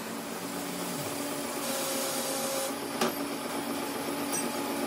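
Metal lathe running steadily with a steel bushing spinning in its chuck, a steady hum throughout. A short hiss comes about two seconds in, and a sharp click about three seconds in.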